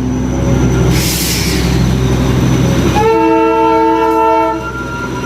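Darjeeling Himalayan Railway toy train locomotive running with a steady low rumble, with a short burst of hiss about a second in. The horn then sounds for about a second and a half, around three seconds in.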